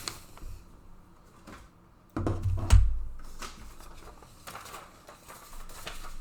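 Clicks and light knocks from objects being handled on a tabletop, with one louder, deeper thump about two and a half seconds in.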